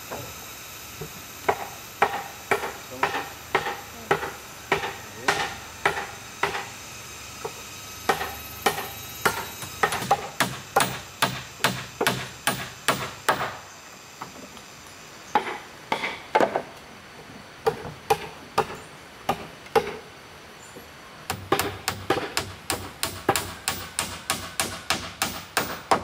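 A tool striking bamboo over and over, about two to three hard blows a second in runs broken by short pauses, each blow giving a short ringing note.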